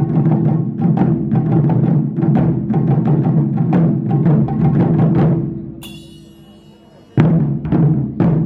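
Japanese taiko drums played in a fast, dense rhythm that stops about five seconds in. A bright, ringing metallic note follows, then two heavy single drum strikes near the end.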